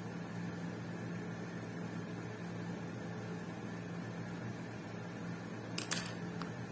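Steady low hum in the background, with two sharp clicks close together near the end as the figurine's clear acrylic base is set down on the hard tabletop.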